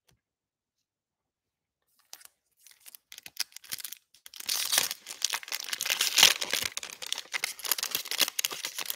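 Foil wrapper of a Panini Prizm trading card pack being torn open and crinkled. It starts with a couple of seconds of near silence, then scattered crackles, and becomes dense, continuous crinkling and tearing from about halfway.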